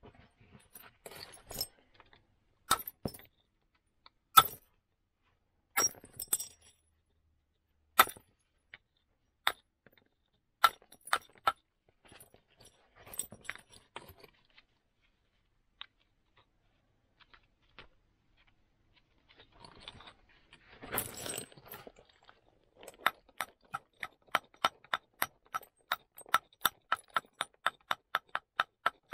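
Flint being knapped with a moose-antler punch and wooden billet. A scatter of single sharp clicks is followed by a brief rustle a little after two-thirds through, then a fast, even run of light taps, about four a second, near the end.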